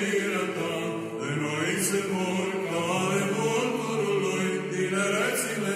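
Chanted choral music: voices holding long, slowly changing notes.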